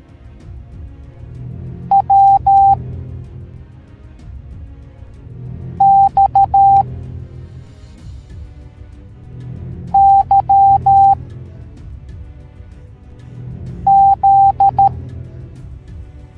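Morse code beeps: a single steady electronic tone keyed in short and long pulses, sounding out a letter in four groups about four seconds apart, over background music.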